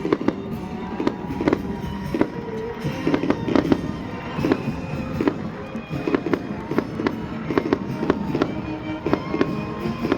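Fireworks going off in a rapid, continuous series of sharp bangs, a few a second, with music playing underneath.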